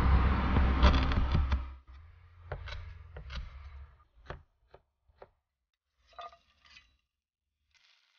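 Chinese cleaver chopping on a wooden cutting board, cutting hard cured pork and potato slices: a handful of separate knocks with gaps between them. A loud low rumble covers the first two seconds and then stops.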